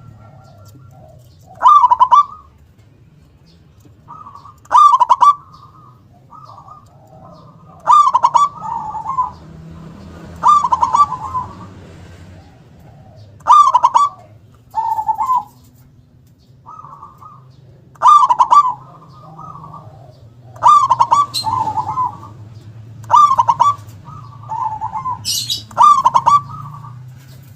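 Zebra dove (perkutut) singing its cooing song again and again, a loud phrase roughly every two and a half to three seconds.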